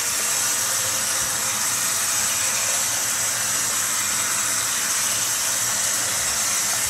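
Kitchen tap running a steady stream of water into a stainless steel pot of seasoned meat and onions; the water is shut off at the end.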